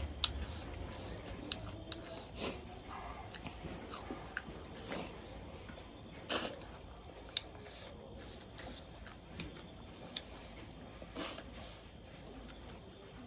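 Close-miked chewing and biting of food, with irregular wet mouth smacks and small clicks and a few louder ones spread through.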